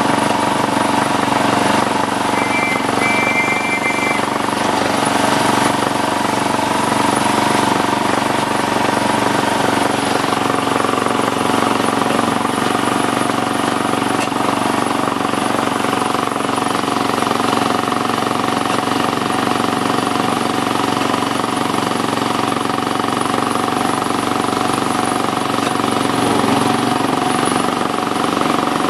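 7¼ inch gauge miniature railway train running steadily along the track, heard from one of its carriages: a continuous rattle and hum of the train. A short, high two-note sound comes about two to four seconds in.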